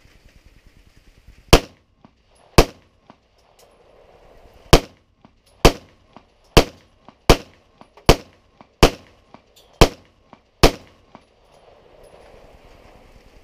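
Smith & Wesson SD9VE 9mm pistol fired ten times, single shots. The first two come about a second apart, then after a two-second pause the other eight follow at roughly one a second.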